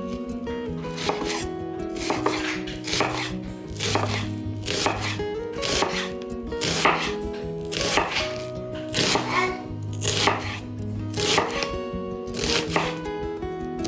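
Knife chopping food on a cutting board in a steady rhythm of sharp cuts, a little under two a second, over background music.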